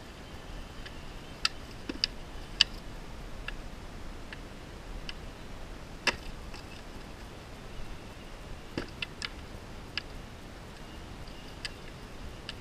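Practice swords striking round shields in sparring: irregular sharp knocks, three in quick succession about nine seconds in.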